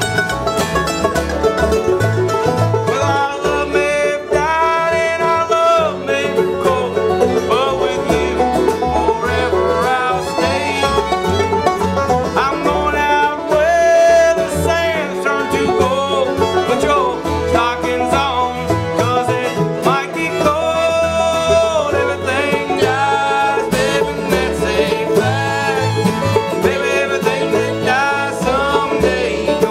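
Bluegrass band playing live: banjo, mandolin, fiddle, acoustic guitar and upright bass, with two voices singing together at one microphone.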